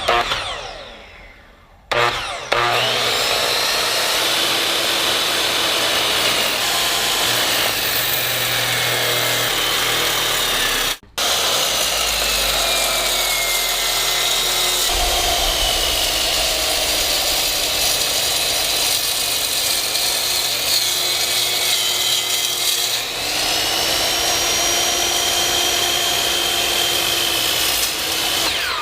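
Power cutting tool running steadily through material, its pitch sagging and recovering as the blade is loaded. The sound stops for a moment about eleven seconds in, then carries on.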